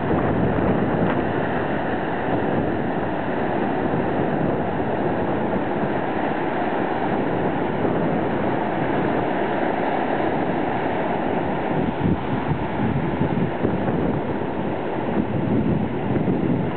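Small ocean waves breaking and washing up a sandy beach in a steady rush, with wind buffeting the microphone.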